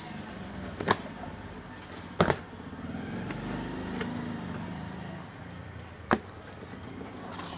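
Cardboard box being opened by hand, its packing tape slit with a pen-like tool and the flaps handled, with three sharp clicks about a second in, about two seconds in and about six seconds in.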